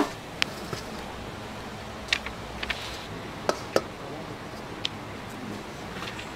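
Scattered sharp clicks and knocks, about nine of them at uneven intervals, the two loudest close together in the middle, over a steady background hum.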